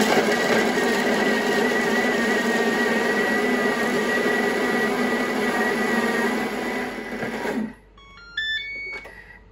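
Thermomix TM31 food processor chopping leeks at speed 5 for eight seconds: a steady motor whir with a high whine that cuts off about three-quarters of the way through. A short run of electronic beeps follows as the timer finishes.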